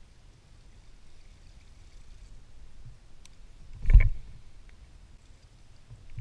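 Kayak on calm water: faint lapping and hull noise, then one loud low thump on the kayak about four seconds in.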